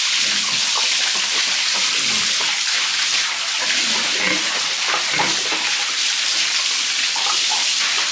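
Steady rush of running water spraying out while the pigsty is washed down.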